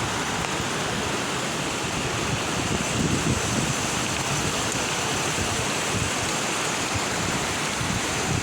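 Heavy storm rain falling steadily, an even hiss.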